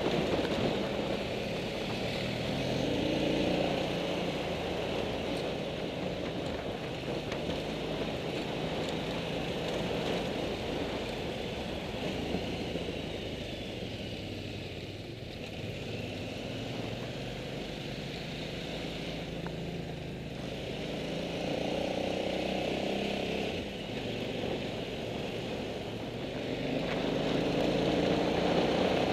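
Motorcycle engine running on a gravel track, heard from on board the bike with wind noise over the microphone. The engine note rises and falls with the throttle and gets louder near the end.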